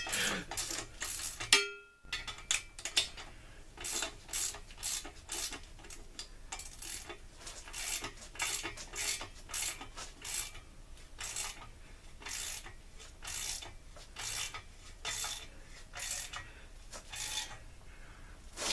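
Ratchet wrench tightening a bolt, its pawl clicking in short runs about twice a second, with a brief break about two seconds in.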